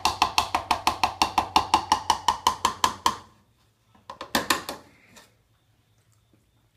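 A kitchen utensil rapidly tapping against the blender jar, about five even, ringing taps a second, which stop about three seconds in; a few more knocks come about a second and a half later.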